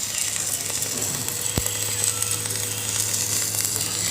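Electric arc welding on stainless steel: a steady crackling sizzle of the arc over a low, steady hum, with a single sharp click about a second and a half in.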